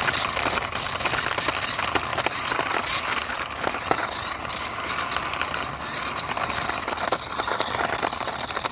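Toy airplane pushed by hand across a surface: its wheels rolling with a steady rattling, scraping noise.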